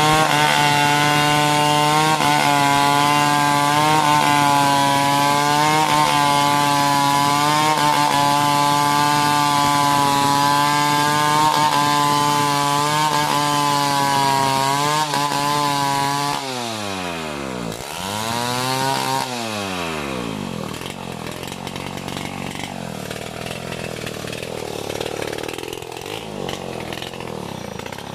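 Chainsaw running at high revs while cutting a coconut palm trunk, its pitch wavering slightly. About sixteen seconds in, the revs drop sharply, rise and fall once more, and the saw settles to a quieter, lower idle.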